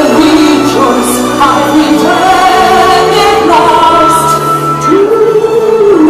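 Loud music with singing, voices holding long notes that glide from pitch to pitch.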